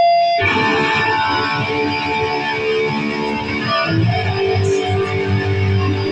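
Live band kicking into a song's instrumental intro about half a second in, led by strummed guitar with bass underneath, after a brief held tone.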